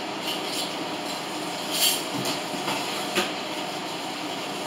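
Kitchen range hood exhaust fan running with a steady whoosh, with a few short clatters over it.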